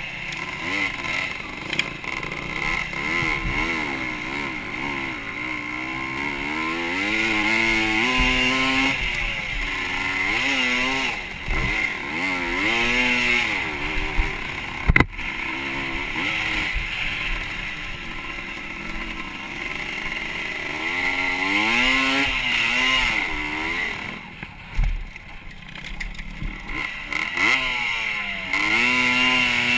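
Motocross dirt bike engine revving hard and backing off again and again, pitch climbing and dropping through the gears, heard on board from a helmet camera. A single sharp knock about halfway through.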